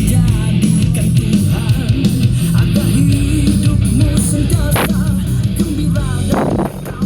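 Loud rock music with guitar, heavy in the bass, dipping briefly near the end.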